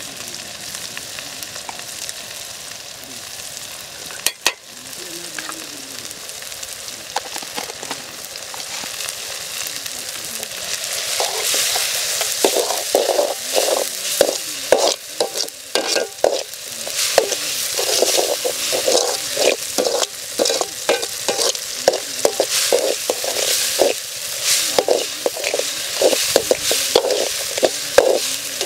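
Chopped tomatoes sizzling in oil in a metal pan. A steel slotted spoon stirs and scrapes against the pan, and about a third of the way in the scraping becomes louder, in quick repeated strokes.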